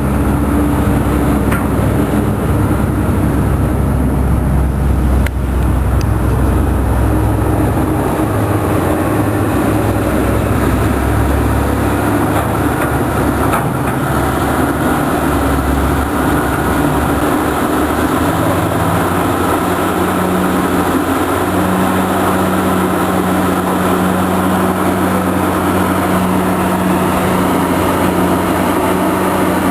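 Cat 330 excavator's diesel engine running steadily as the machine works, its note changing about eight seconds in and again around eighteen seconds, when a steady hum sets in.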